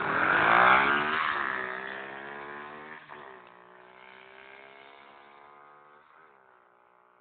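Pit bike engine revving hard as it pulls away. It is loudest in the first second, then falls in pitch and fades steadily as the bike rides off, with a further drop in pitch about three seconds in like a gear change.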